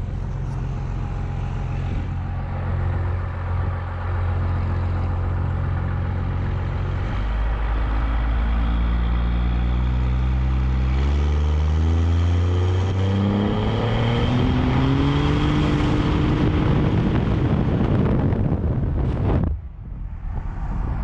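Cummins diesel pickup engine pulling hard under acceleration. It holds a steady drone at first, then its pitch climbs repeatedly in steps from about a third of the way in as the transmission shifts up through the gears, and the sound drops off suddenly near the end.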